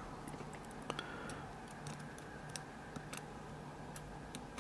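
Light, irregular clicks of steel tweezers picking up and setting down small pin tumblers from a gutted Schlage Everest lock cylinder in a rubber pin tray, over a faint steady hum.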